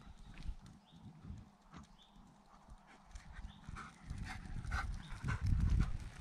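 Footsteps of a person and a dog walking on an asphalt path, an uneven run of soft knocks and light clicks, heavier about five seconds in.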